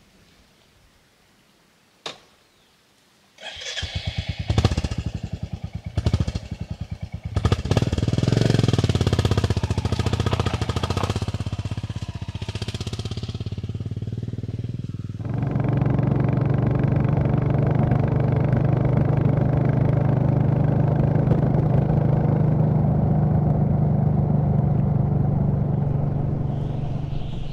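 Royal Enfield Classic 350's single-cylinder engine starting up about three seconds in, blipped a few times and pulling away. From about halfway it runs steadily at an even road speed.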